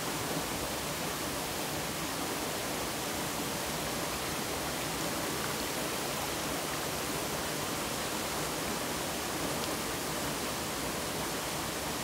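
Mountain valley stream, water running in a steady, even rush with no breaks.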